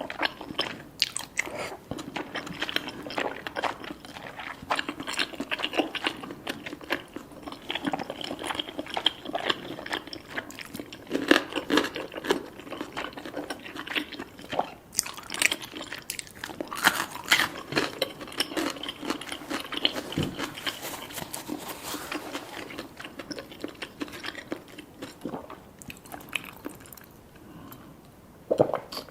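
Chewing and biting sounds of cheesy rice cakes and fish balls being eaten, with many quick wet clicks and smacks; the eating thins out in the last few seconds.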